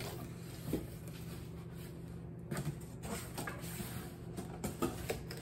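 Cardboard box being opened by hand: scattered rustles, scrapes and light knocks as the flaps are pulled apart and the inner lid lifted, over a faint low steady hum.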